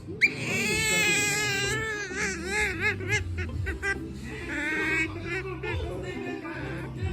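Asian small-clawed otter giving a run of high-pitched, wavering squeaky calls that rise and fall in pitch. They come in several stretches: a long one at the start, a quick warbling passage about two seconds in, and more calls in the second half.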